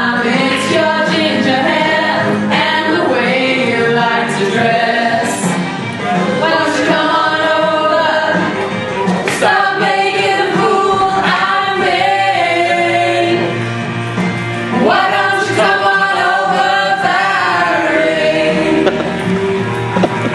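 Music with several voices singing together, continuing without a break.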